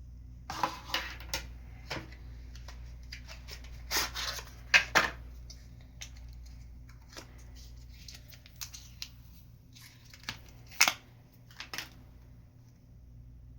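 Hands handling a doorbell camera's packaging and parts: scattered clicks, rustles and short scrapes, loudest about four to five seconds in and again about eleven seconds in.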